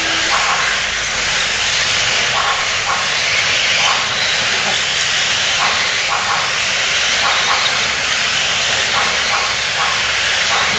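Radio-controlled off-road cars running laps on an indoor dirt track: a steady hiss of small motors and tyres with no clear engine note.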